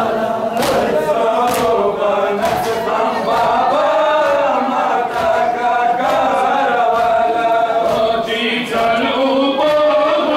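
A crowd of men chanting a Muharram lament in unison while beating their chests in matam, the slaps of hands on chests landing about once a second and clearest in the first few seconds. A higher voice joins the chant near the end.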